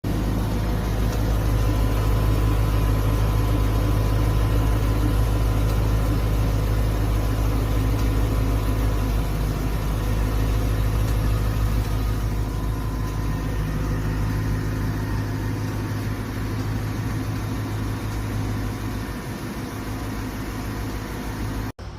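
BMW E92 M3's S65 V8 engine running steadily with a ticking noise, which the owner fears may be a sign of worn rod bearings. It gets somewhat quieter over the last few seconds.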